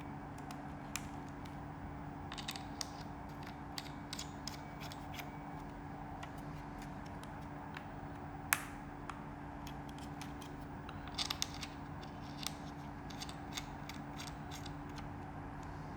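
Irregular small clicks, taps and brief scrapes of hands handling packaging and plastic parts while unboxing, with one sharper click about halfway through and a quick cluster of clicks a little later. A steady low hum runs underneath.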